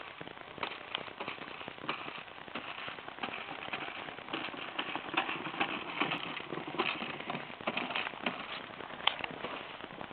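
Toy push lawnmower clattering as it is pushed, a constant run of irregular clicks and rattles.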